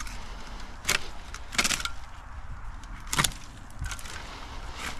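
Hand pruning shears snipping through dry, bare branches, giving several sharp snaps a second or so apart, with twigs crackling.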